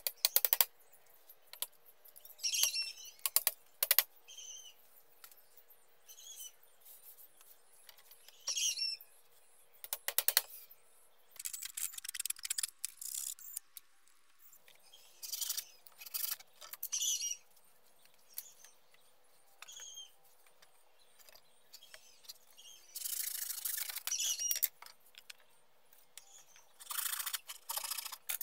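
Hammer blows nailing split-bamboo slats onto a bamboo frame: sharp knocks in short groups, the loudest near the start. A small bird chirps repeatedly between them, and there are a few longer scraping noises.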